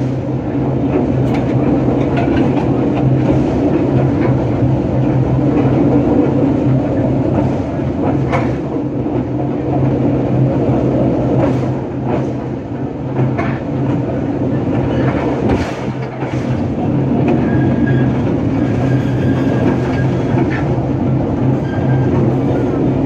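Narrow-gauge train heard from the locomotive cab while running: a steady low engine drone, with wheels clicking and clattering over the track. Near the end a thin, high wheel squeal comes and goes.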